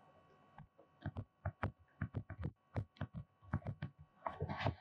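Stylus tapping and dragging on a tablet screen while handwriting a word: a run of soft, irregular thuds and clicks, about two or three a second, with a louder, noisier stretch near the end.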